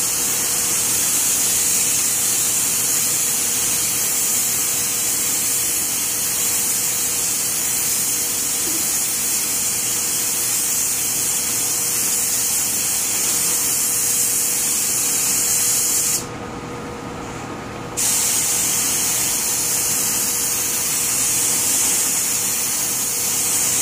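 Cup-fed compressed-air paint spray gun hissing steadily as it sprays paint. The spray is cut off once for about two seconds, two-thirds of the way through, then resumes.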